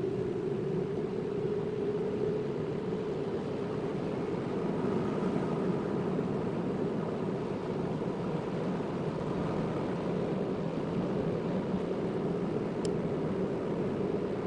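Car driving at a steady pace, with continuous engine and tyre noise heard from inside the cabin and a low steady hum.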